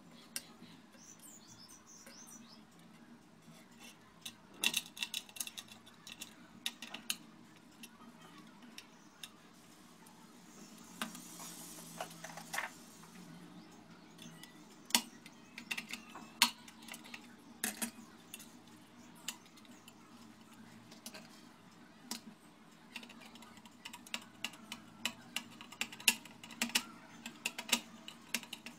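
Small metal clicks and taps of a screwdriver and loose parts on an opened hard drive's head-arm assembly, as screws are undone and pieces set down. The clicks come irregularly, closer together near the end.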